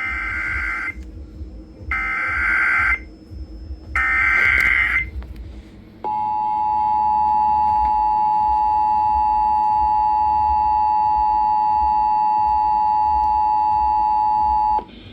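Emergency Alert System activation: three one-second bursts of warbling digital SAME header data, each about a second apart, then the steady two-tone EAS attention signal, which holds for about nine seconds before cutting off near the end. It is sent ahead of a tornado warning.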